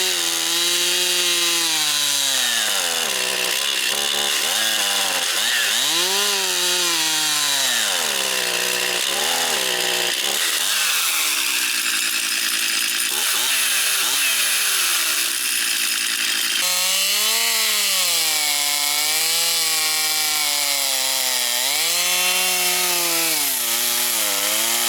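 Stihl MS362 two-stroke chainsaw cutting through wood, its engine speed repeatedly sagging under load and climbing back. It is bogging down and not running right, a fault the owner thought might be bad fuel lines.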